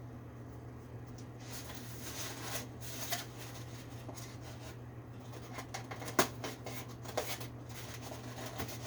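Hands working on a window air conditioner's metal parts make scattered scrapes and light clicks, with one sharp click about six seconds in. A steady low hum runs underneath.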